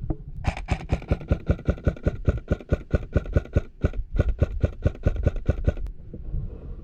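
AR-15-style airsoft rifle firing a long string of rapid shots, about seven a second, with two brief breaks in the firing; it stops about six seconds in.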